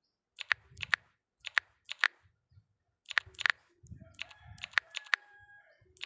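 A series of sharp clicks, about ten of them, several in quick pairs, with a faint brief tone in among them a little past the middle.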